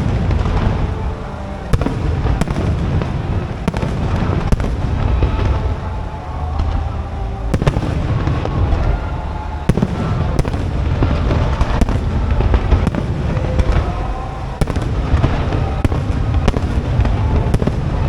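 Aerial fireworks display: a continuous low rumble of shell bursts with many sharp bangs and pops scattered irregularly throughout.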